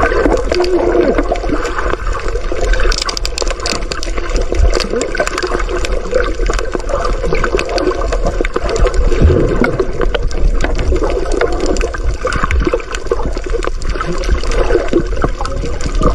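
Underwater water noise: continuous gurgling and rushing of water around a submerged camera, with small clicks and bubbling.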